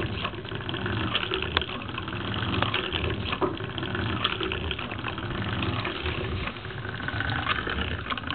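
Lego compressed-air walking beam engine running steadily: air hissing through its valve and pneumatic cylinder in a repeating pulse, with occasional sharp clicks from the plastic beam, rods and gears.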